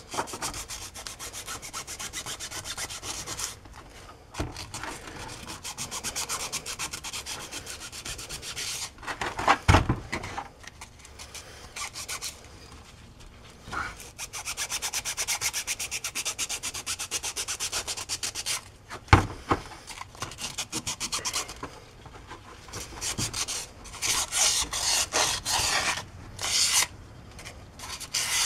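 Emery cloth rubbed by hand around the inside of a wheel-bearing bore in a metal hub housing. It comes in runs of rapid back-and-forth scrubbing strokes with short pauses, dressing the bore before a new bearing is pressed in. Two sharp knocks stand out, about ten and nineteen seconds in.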